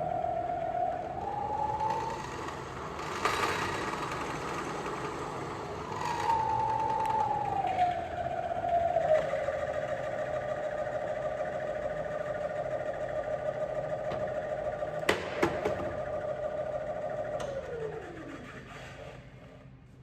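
Clausing 2285 20-inch four-spindle drill press running with a steady whine, its pitch rising and settling back twice as the speed changes. There are a few sharp clicks, then near the end it is switched off and the whine falls away as it spins down.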